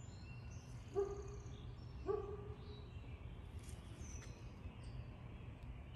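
A rooster gives two short clucks about a second apart, with small birds chirping faintly in the background.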